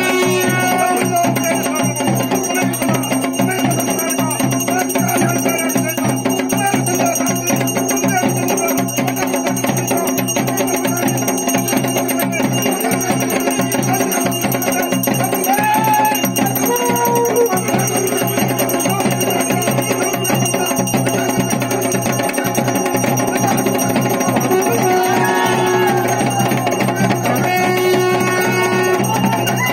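Traditional dhol and damau drumming with a steady beat, and bells ringing over it: the ritual drumming played to bring a village deity into a possessed devotee.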